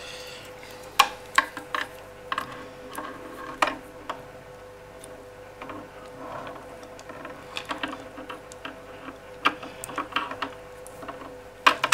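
Irregular small clicks and taps of a small screwdriver and parts being handled against a plastic radio transmitter case, over a faint steady hum.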